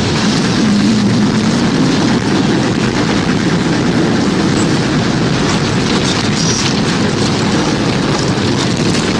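Tornado wind sound effect: a loud, steady roar with a deep rumble.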